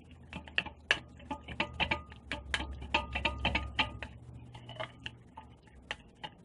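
Quick, irregular light clicks and taps of a utensil against a bowl as yellow-tinted frosting is stirred, several a second.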